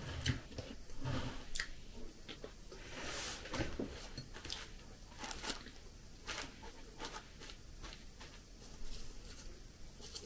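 Close-up eating of pishmanie, a flossy halva, picked with a fork: chewing and mouth sounds with scattered small clicks, and a longer crinkle of the plastic bag about three seconds in.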